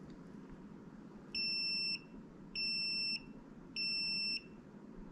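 Klein Tools ET120 combustible gas leak detector beeping its alarm three times, each beep a high steady tone about half a second long. It is a false alarm with no gas nearby, something the owner says it has done randomly before without knowing why.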